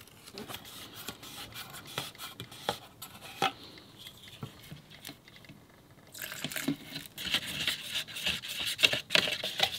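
Varnish being stirred with a wooden stick, first in its tin can and then in a plastic mixing cup. Scattered clicks and taps come from the cans and lids being handled. About six seconds in, the scraping and rubbing grows denser.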